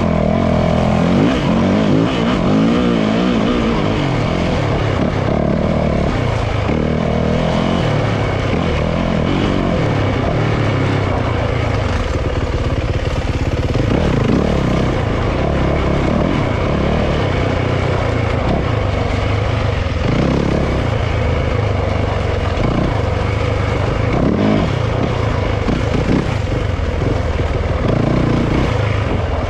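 Yamaha YZ450F dirt bike's single-cylinder four-stroke engine, revving up and down again and again as it is ridden hard through tight trail sections.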